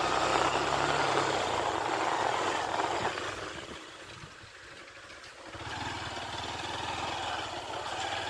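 Small motorcycle engine running at low speed, with wind and road noise. The engine drops quieter for about two seconds just past the middle, then comes back as a low, even pulsing.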